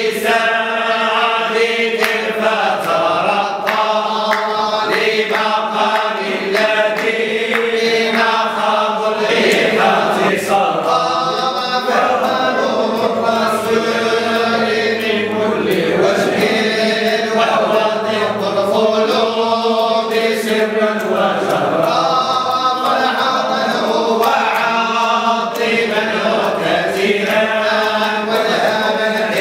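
A group of men singing Sufi devotional verse (qasida) together in Arabic, unaccompanied, in long drawn-out melodic lines.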